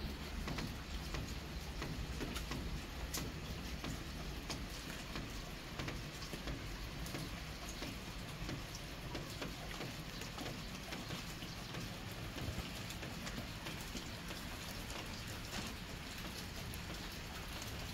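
Steady rain falling, with many small drop ticks pattering through a continuous hiss.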